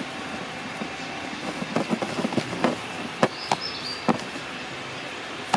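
A hand mixing and squeezing damp groundbait in a plastic bowl: irregular soft rustles and clicks, with a few sharper knocks against the bowl.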